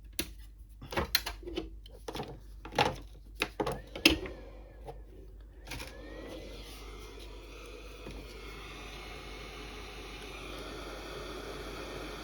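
A few sharp clicks and knocks of handling, then about six seconds in a heat gun starts up and runs with a steady rushing blow of hot air, shrinking heat-shrink tubing over a battery pack.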